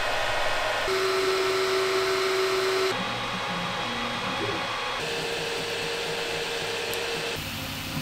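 3D printers running one after another in short clips: a Creality Ender-3 V2, another printer, an Ender-5 Pro, another, then a Prusa MK3S. Each is a steady whir of cooling fans with a few steady whining tones. The sound changes abruptly about every two seconds and gets a little quieter each time.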